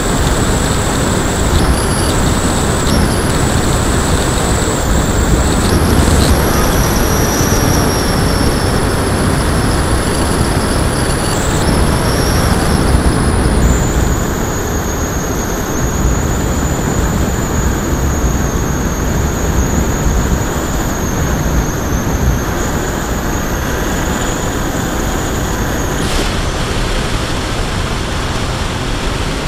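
Wind rushing over the microphone of an action camera riding on a flying RC plane, with the high whine of its brushless electric motor and propeller, a Turnigy D3536 1450kv spinning an 8x6 prop. The whine shifts pitch in steps a few times, drops about halfway through, and cuts off near the end while the wind noise goes on.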